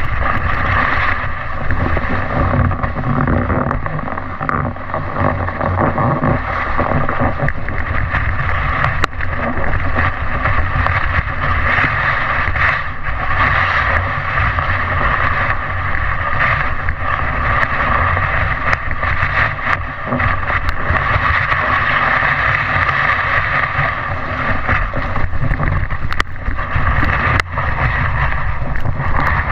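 Steady rushing of wind and snow against an action camera's microphone while sliding down a snowy slope, with a few sharp knocks near the end.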